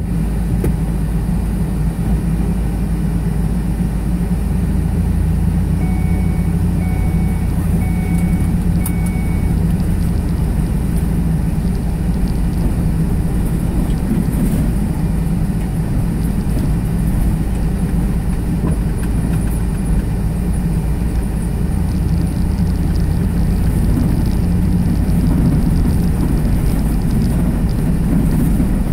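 Inside a car driving slowly: steady low rumble of the engine and the tyres on the road. About six seconds in come four short beeps, evenly spaced.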